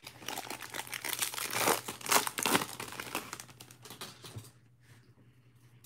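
A stack of trading cards being shuffled and handled, card stock sliding and flicking against card stock in a dense crinkling rustle that stops about four and a half seconds in.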